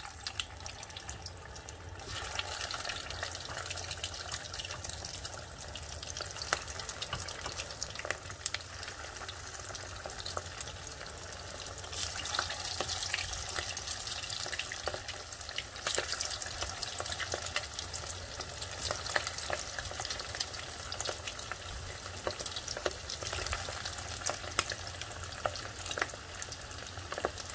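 Tuna cutlet balls deep-frying in hot oil: a steady sizzle with many crackles and pops, stepping up in loudness about two seconds in and again around twelve seconds in as more balls go into the oil.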